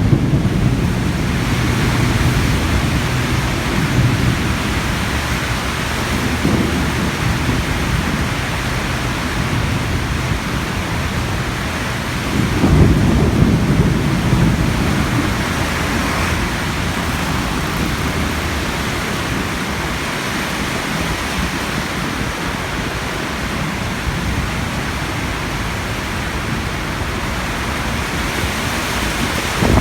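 Heavy rain pouring down steadily, with thunder rumbling low at the start and again about thirteen seconds in.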